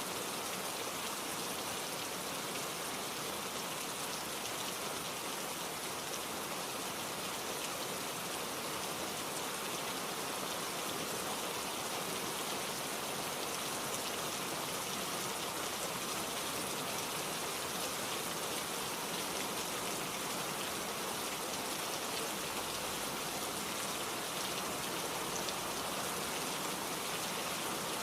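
Steady rain falling, a dense even hiss of drops with no pauses or changes in strength.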